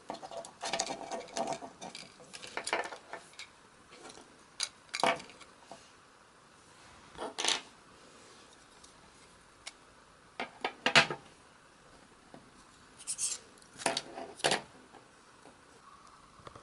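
Small hard plastic and metal parts of a dashcam being handled and worked on: irregular clicks, taps and light scrapes in short clusters, the loudest about eleven seconds in.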